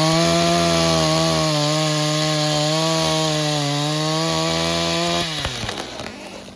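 Stihl two-stroke chainsaw running at full throttle, its pitch wavering slightly as it cuts through wood. About five seconds in the throttle is let off and the revs fall away.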